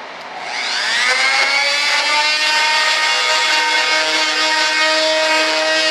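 Handheld high-speed rotary tool spinning up about half a second in with a quickly rising whine, then running at a steady high pitch while it trims the fiberglass flange off the layup.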